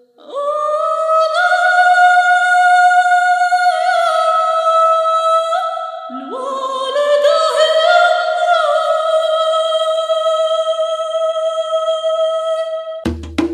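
A woman's solo voice singing long, held notes unaccompanied, in two phrases that each slide up into the note. Near the end, quick sharp knocks and a low drum come in.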